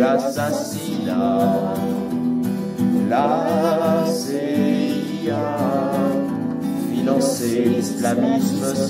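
Two men singing a French pop song together over guitar accompaniment.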